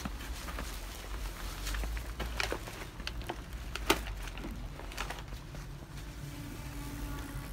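Footsteps in fresh snow on a pavement: short, sharp steps spaced irregularly about half a second apart, the sharpest about four seconds in, over a steady low rumble.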